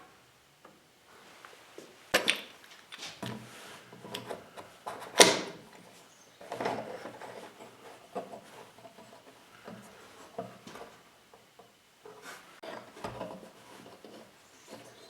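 Wooden parts being handled on a bench: a sharp knock about two seconds in, a louder wood-on-wood knock about five seconds in, and wood rubbing and scraping between and after.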